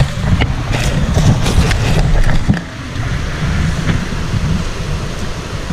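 Low rumble of wind buffeting the camera microphone, with short knocks and rustles from the camera being carried while walking; the rumble eases slightly about two and a half seconds in.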